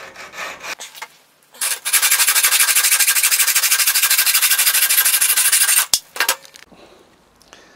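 Hacksaw cutting through a metal tube. Faint strokes come first, then about a second and a half in a loud run of fast, even strokes begins, which stops abruptly about six seconds in.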